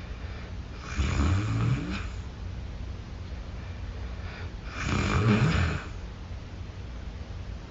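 A sleeping person snoring: two snores, each about a second long and about four seconds apart, over a low steady hum. The uploader puts the snoring down to a shunt implanted after a brain bleed.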